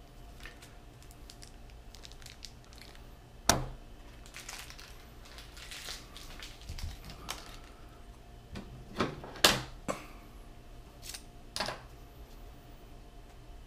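Handling noise at a wooden table: a cigar and a kitchen knife being picked up and set down, giving scattered sharp taps and knocks, loudest about three and a half seconds in and in a quick cluster around nine to ten seconds, with light rustling between.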